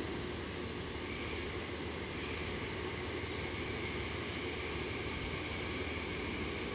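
DD51 diesel-hydraulic locomotive's twin diesel engines running with a steady drone as it creeps along the yard track. A thin high whine joins in about a second in and holds.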